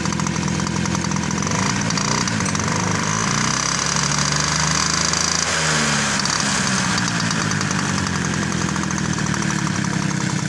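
Peugeot 103 moped's two-stroke single-cylinder engine running, revved up and back down around the middle. The revs drive the lighting coil, wired without a regulator, past 35 volts, enough to burn out the bulbs.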